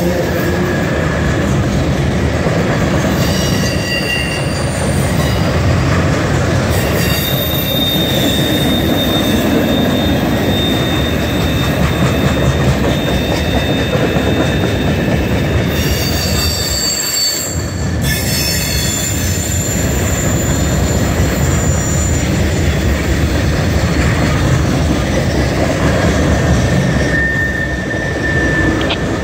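Freight cars of a mixed manifest train rolling past: a steady, loud rumble of steel wheels on rail, with thin, high wheel squeals that come and go.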